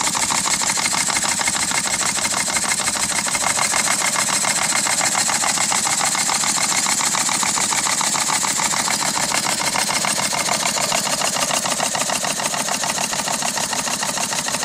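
Stuart No. 9 model steam engine, a single-cylinder horizontal slide-valve mill engine, running steadily at speed with a fast, even patter of exhaust beats and a steady hiss.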